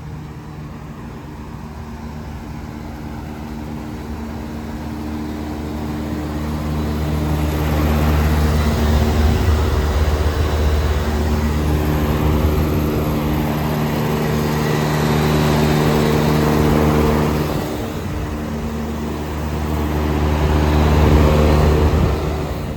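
Commercial air-conditioning condensing units running: a steady electrical hum of compressors with the rush of condenser-fan air over it, growing louder about a quarter of the way in and again near the end.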